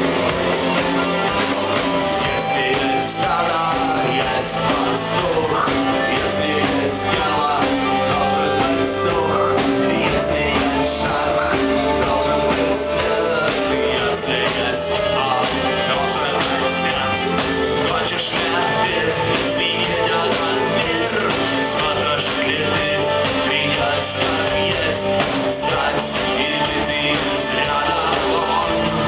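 Live rock band playing an instrumental song: electric guitars, bass and drums with steady cymbal hits.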